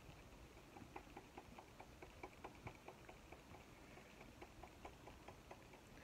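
Near silence with faint, even ticking, about four to five ticks a second.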